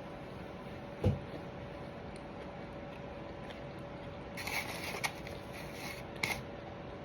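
Biting into and chewing a loaded bacon, egg and beef burger: a thump about a second in, then crunchy, crackly bites and chewing around four and six seconds in. A faint steady hum runs underneath.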